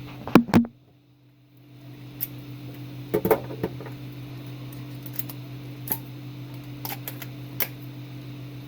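Two sharp clicks, then a steady low electrical hum with scattered light clicks and taps over it.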